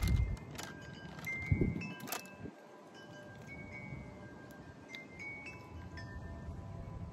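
Wind chimes ringing, several different notes sounding one after another and ringing on. A couple of low muffled thumps come in the first two seconds.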